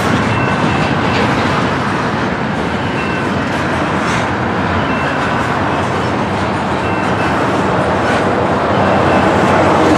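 Double-stack intermodal container train passing at track speed: steady rumble and rattle of its well cars and steel wheels on the rails, with a brief faint high tone now and then.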